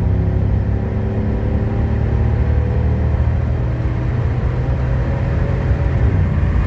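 Silverado's 5.3-litre LS V8 with a Truck Norris camshaft running under load as the truck drives. Its note drops in pitch about six seconds in.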